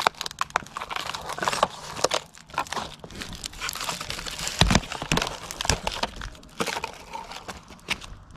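Foam RC plane (Dynam Hawk Sky) being stomped on and broken apart by hand: foam crunching and crackling in irregular snaps, with one heavy thump about halfway through.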